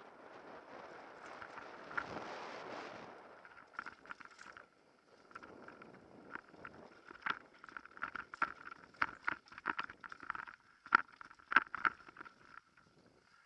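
Wind rushing over a backpack-mounted camera's microphone during a mountain bike descent, then a run of sharp knocks and rattles as the bike and the rider's pack jolt over rough dirt singletrack, the hardest jolts coming a little before the end.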